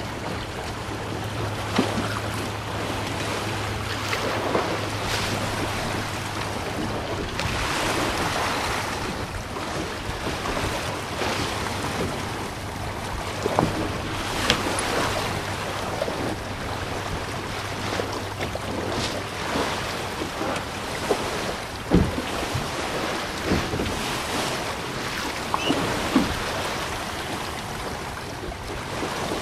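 Wind buffeting the microphone and choppy lake waves splashing against the hull of a small sailboat under sail, with scattered sharp slaps and knocks, the loudest about two-thirds through. A steady low hum runs underneath and stops about two-thirds through.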